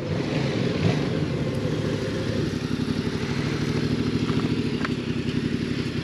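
Motorcycle engine running steadily at low revs, with an even pulsing beat and no change in pitch.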